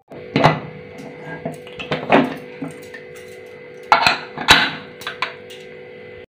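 Aluminium pressure cooker being closed up: a few sharp metal clanks as the lid and handles are worked, then clicks and knocks near the four-second mark as the whistle weight is set onto the vent pipe. A steady hum runs underneath.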